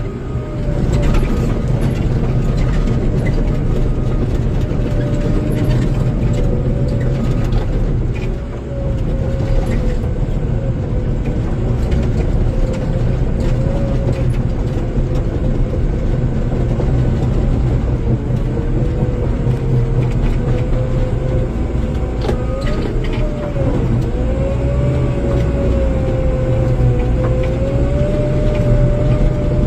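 A bulldozer's heavy diesel engine running steadily under load, with a low rumble and a whine that wavers up and down in pitch.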